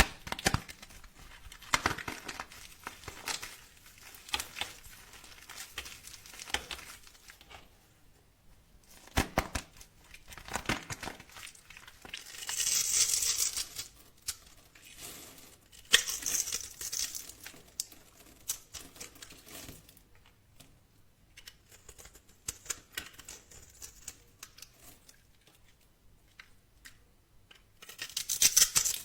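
Close-up crackling, crinkling and tearing noises in irregular bursts of sharp clicks, with a few longer hissing scrapes partway through and near the end.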